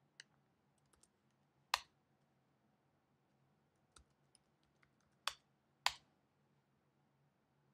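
Sparse keystrokes on a computer keyboard: a few light taps and three sharper key presses, one about two seconds in and two close together near the six-second mark, as a command and passwords are typed at a terminal.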